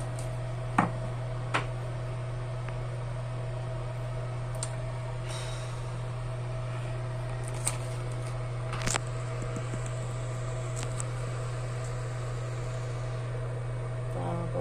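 Steady low hum of a small appliance motor, with a few short, sharp clicks and taps scattered through it.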